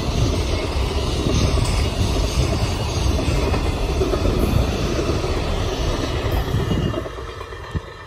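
A long freight train's container wagons passing close by, their wheels running over the rails in a steady loud rumble and clatter. The noise drops off about seven seconds in.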